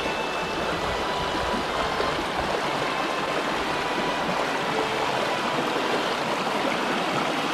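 A stream running, a steady rush of flowing water.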